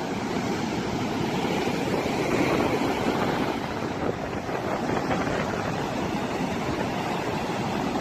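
Surf of a rough sea breaking in several lines and washing up a sandy beach: a steady, continuous wash of waves.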